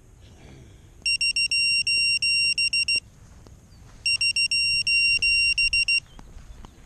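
Electronic buzzer on an FPV racing quad sounding in rapid pulsed beeps, in bursts of about two seconds with about a second between them, typical of a lost-model alarm.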